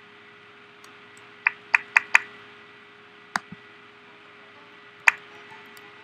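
Sharp clicks from a laptop being operated: a quick run of four about a second and a half in, then single clicks a little past the middle and near the end, over a faint steady hum.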